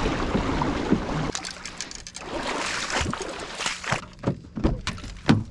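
Water rushing and splashing along the hull of a kayak under way. Then a run of sharp clicks and knocks as a car door handle is pulled and the door opened.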